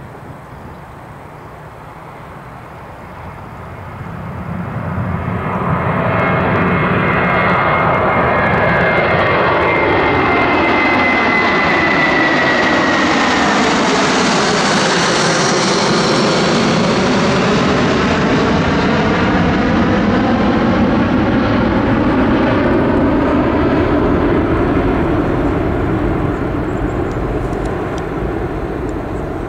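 Boeing 747-400's four Rolls-Royce RB211 turbofans at takeoff climb thrust as the jet passes low overhead. The sound swells over the first few seconds into a loud, steady jet noise. A high whine falls in pitch as the aircraft goes by, with a sweeping, phasing sound, and the noise eases slightly near the end as it climbs away.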